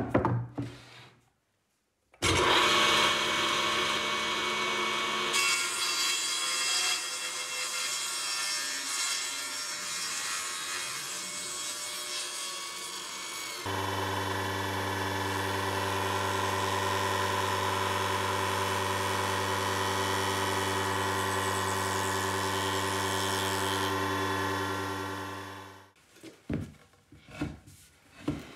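Electric power tool working wood and epoxy resin. A knock at the very start, then the tool starts about two seconds in with a noisy cutting and rubbing sound. About halfway it settles into a steady motor hum, which winds down near the end.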